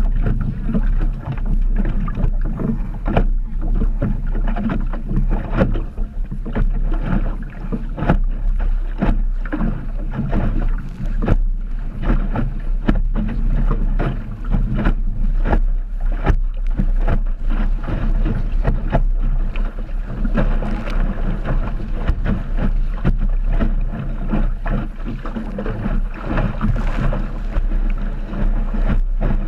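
Wind buffeting the microphone of an Optimist dinghy under sail in choppy water, with a constant low rumble. Water slaps and splashes against the hull at uneven intervals.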